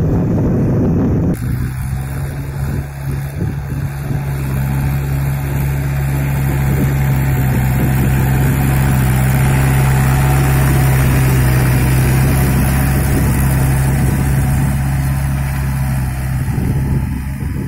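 Farm tractor's diesel engine running steadily under load as it drags cage wheels and a tiller through flooded paddy mud, a low, even drone that holds one pitch. A rougher, noisier sound fills the first second or so.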